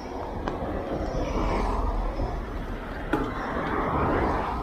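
Riding noise from a mountain bike: wind rushing over the microphone and tyres rolling over grassy ground, swelling twice, with one sharp click about three seconds in.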